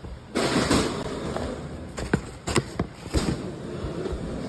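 Packing tape and cardboard of a shipping box being slit open with a small cutter: a scratchy, tearing scrape with a few sharp clicks and snaps two to three seconds in.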